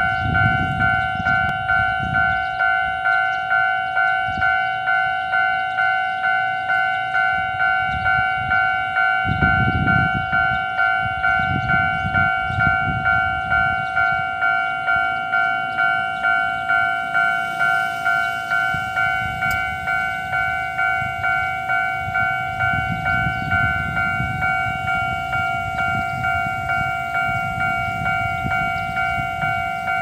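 Level-crossing warning bell ringing in a steady ding-ding, about two strikes a second, signalling that a train is approaching and the barriers are down. A low rumble comes and goes under the bell.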